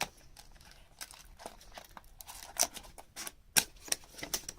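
A fun dough toy box and the packaging inside it being opened and handled: irregular light clicks, taps and rustles, with a few sharper clicks in the second half.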